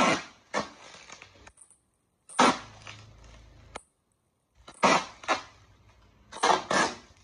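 Packing tape being pulled off a handheld tape gun and cut while sealing a bubble-wrapped parcel, with the bubble wrap crinkling under the hands. It comes as a series of short, loud bursts about every two to three seconds, the last two close together near the end.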